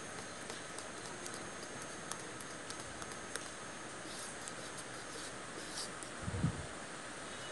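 Scattered light clicks of kitchen utensils against a bowl of cake batter over a steady hiss, with one low thump about six seconds in.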